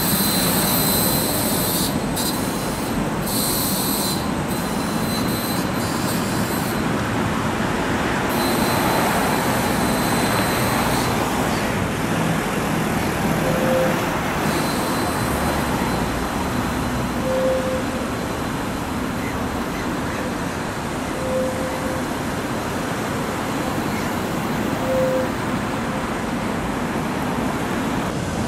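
Tram wheels squealing on the rails, a high-pitched screech that breaks off and returns several times and dies away about eleven seconds in, over steady road-traffic noise. In the second half a short low beep repeats four times, about every four seconds.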